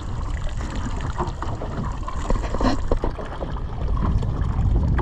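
Wind rumbling on the microphone over water slapping and gurgling against a small boat's hull, with a few light knocks.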